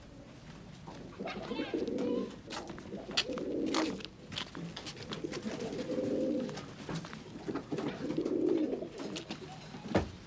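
Domestic pigeons cooing in a loft: a series of low, rolling coos, with scattered light clicks and a sharp knock near the end.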